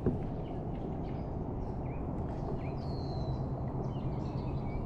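Faint short bird chirps, several scattered through, over a steady low rumble and hum.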